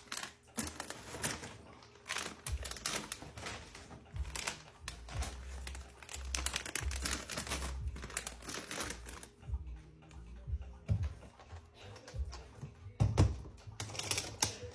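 Plastic-wrapped snack packages rustling and clicking as they are handled and packed into an acrylic trunk, with a sharper knock near the end.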